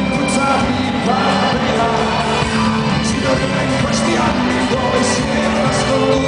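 Live band music with a voice singing, picked up loud and full from the audience at a concert, with a regular beat struck about once a second.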